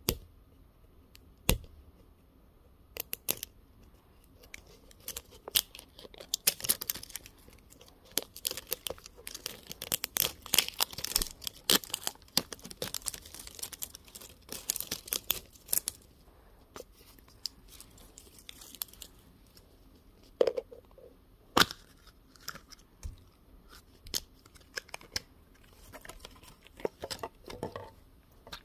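Hands tearing and peeling a crinkly wrapper band off a plastic Gudetama surprise-toy egg. Crackling and tearing is thickest in the first half, with scattered sharp clicks and knocks of the plastic shell being handled.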